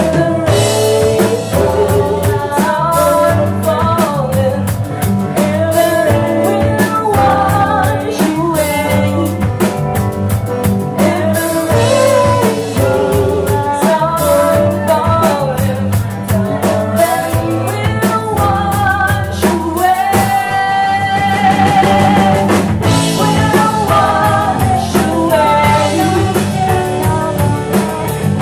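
A rock song with a singing voice over guitar, bass and a drum kit.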